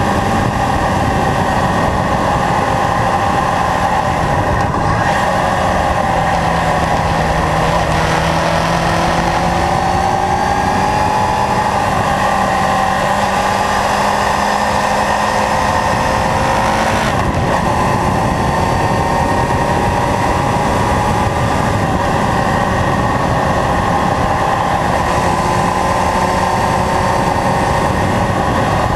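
Kawasaki Zephyr 750's air-cooled inline-four running at road speed, its engine note rising and falling through the bends, with short breaks about 5 and 17 seconds in. Loud wind and road noise on the low-mounted onboard microphone.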